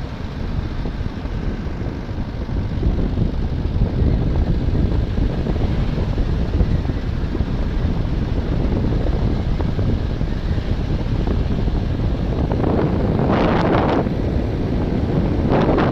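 Moving car's steady engine and road rumble with wind buffeting the microphone, gusting harder about thirteen seconds in and again near the end.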